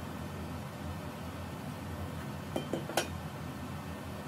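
Metal tubes and brackets of an industrial clothing rack clinking against each other as they are handled, three light clinks in quick succession a little past halfway, over a steady low hum.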